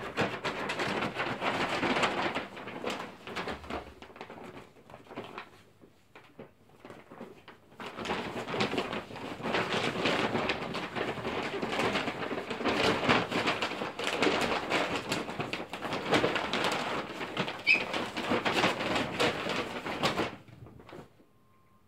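Paper gift bag crinkling and rustling as small terrier puppies scramble about inside it and tumble it over the rug, in two long spells with a quieter lull between them, stopping near the end.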